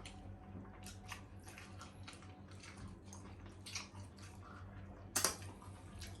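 Close-miked eating of spare ribs masala: chewing and biting with small wet mouth sounds and clicks, and one sharper click about five seconds in. A steady low electrical hum sits underneath.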